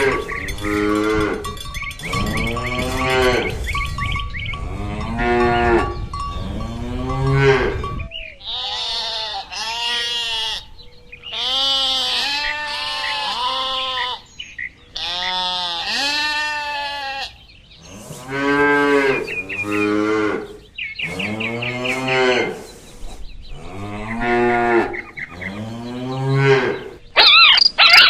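Cattle mooing over and over, a run of calls about a second each that rise and fall in pitch. The calls through the middle are higher-pitched.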